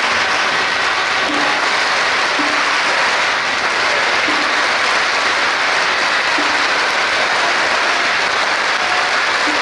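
A long string of firecrackers going off: a dense, unbroken crackle that holds at one loud level.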